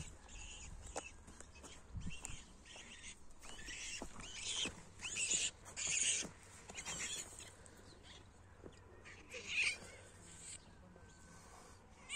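Short, high-pitched animal cries in a series of separate bursts, loudest about five to six seconds in and again near the end.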